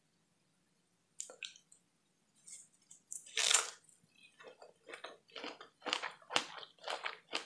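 Close-miked bite into a large fresh strawberry, the loudest sound about three and a half seconds in after a short mouth click just past the first second, followed by steady chewing of the fruit at about two chews a second.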